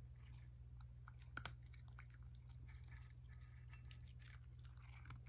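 A cat crunching dry kibble from a ceramic bowl: faint, irregular crunches and clicks, with one sharper click about one and a half seconds in.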